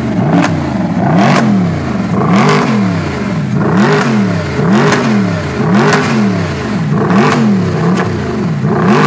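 Mercedes-AMG SLS's naturally aspirated 6.2-litre V8 revved while parked: about eight quick throttle blips, roughly one a second, each rising and falling in pitch, with a sharp crack near the top of each rev.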